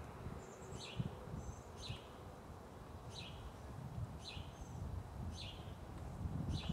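A bird calling over and over, a short high falling chirp about once a second, over a low rumble of wind on the microphone.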